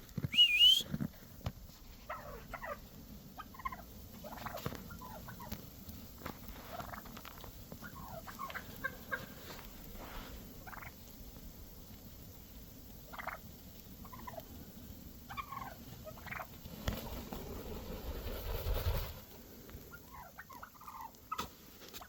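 Wild turkeys calling: many short pitched calls scattered through, with one loud rising call about half a second in. A brief rush of noise comes a few seconds before the end.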